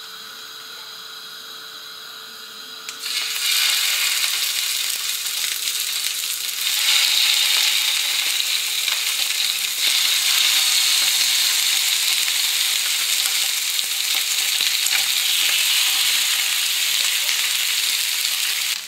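Pieces of herb-marinated rabbit sizzling and crackling in hot oil as they are laid on a stovetop grill pan. The sizzle starts suddenly about three seconds in and gets louder near seven seconds as more pieces go down, then holds steady.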